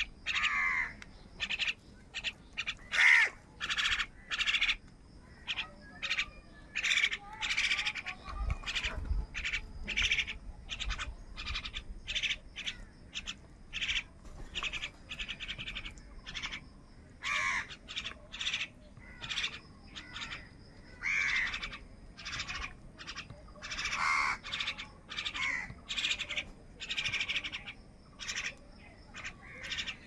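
A flock of house crows cawing over and over, short harsh calls coming one to two a second and sometimes overlapping, as the birds squabble over food.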